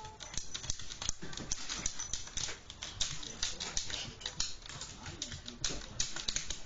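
Toy poodle scratching and digging at a refrigerator, its claws scraping in quick, irregular strokes.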